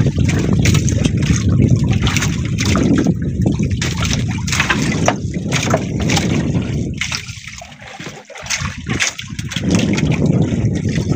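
Sea water sloshing and splashing against the hull and outrigger of a small boat, with wind rumbling on the microphone. It eases for a moment about two-thirds of the way through, then picks up again.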